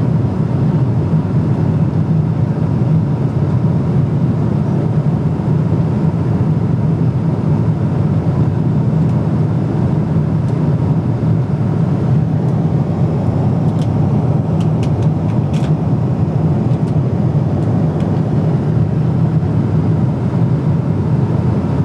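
Steady cabin noise of a Boeing 777-300ER in flight: the low drone of its GE90 engines and the rush of air past the fuselage, even and unbroken. A few faint clicks come about two-thirds of the way in.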